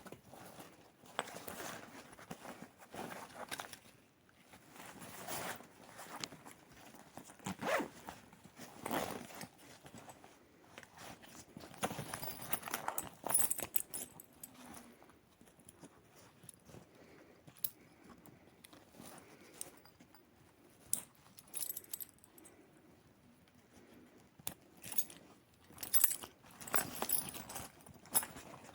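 Irregular rustling, clicks and zipper pulls from a fabric fanny pack being handled, busiest in the first half and again near the end, with a quieter stretch in the middle.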